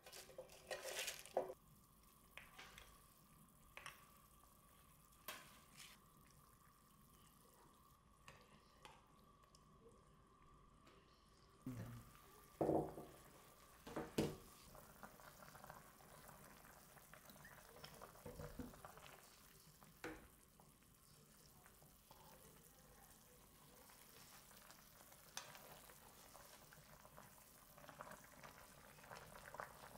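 Faint bubbling of a pan of doenjang soup with beef meatballs and napa cabbage simmering, with a few soft knocks, the loudest about 13 and 14 seconds in. Near the end a wooden utensil stirs the pot.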